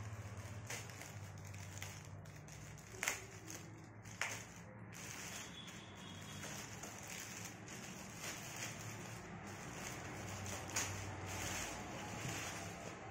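Clear plastic bag crinkling and crackling as it is pulled and peeled off a new laptop by hand, with a few sharper crackles about 3 and 4 seconds in, over a low steady hum.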